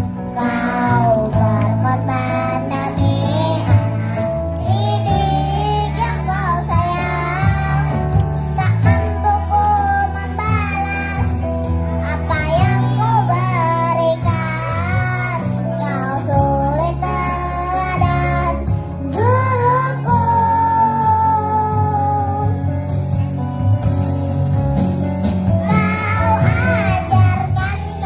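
A kindergarten choir of five- to six-year-old children singing together over instrumental accompaniment, one melody line with steady low accompaniment notes beneath it.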